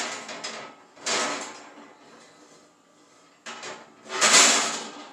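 Metal clatter and scraping of an oven rack and door as a cast iron skillet is set upside down in the oven. There is a clatter at the start, a sliding scrape about a second in, and a louder one about four seconds in.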